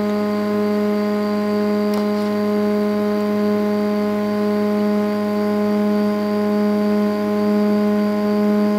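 MakerFarm Prusa i3 3D printer's stepper motors whining steadily as they home the axes, one even pitched tone with overtones. A light tick about two seconds in.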